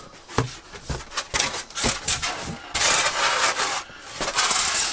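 A polystyrene foam packing sheet being lifted out of a cardboard box and scraping against the cardboard, with several short knocks in the first two seconds and longer scraping stretches after.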